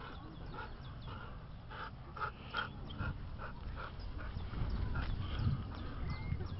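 A dog whimpering in a run of short, high yips, about three a second, then stopping; a low rumble grows louder toward the end.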